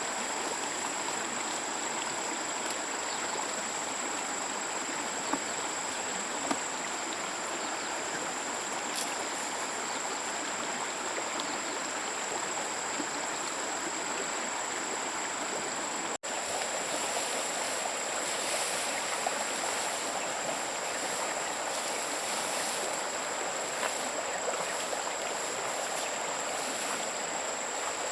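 A stream running steadily, with a steady high-pitched whine over it; the sound shifts slightly at an edit about 16 seconds in.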